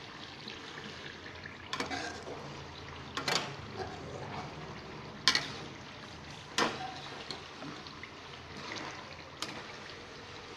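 Chili, garlic and lemongrass frying in melted fat in a metal pan with a steady sizzle, as the sa tế chili oil cooks down. About half a dozen sharp clicks of a spoon against the pan stand out over the sizzle.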